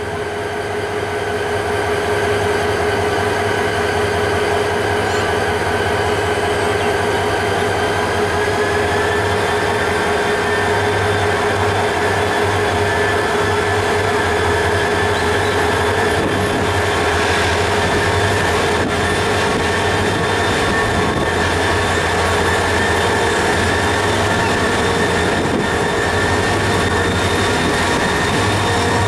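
Bangladesh Railway diesel locomotive no. 2709 running steadily as it pulls slowly out of the station, its engine hum under a high, steady whine. The whine rises a little about a third of the way through as the engine picks up.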